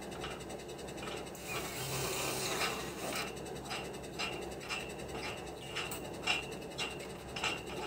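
Irregular metallic clicking and scraping from hand work on steel concrete formwork, with a short stretch of hiss about a second and a half in.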